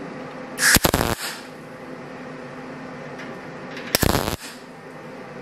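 MIG welder striking two short tack welds on a butt joint in thin fender sheet steel, each burst about half a second long, the second about three seconds after the first.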